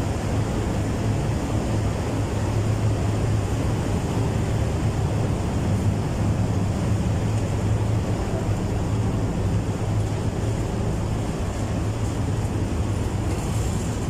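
City bus engine running with a steady low drone, heard from inside the bus.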